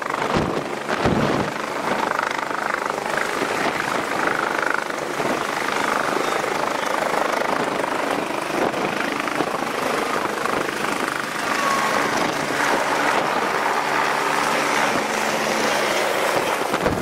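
Medical helicopter's turbine and rotor running close by as it lifts off and hovers, a loud, steady rushing din.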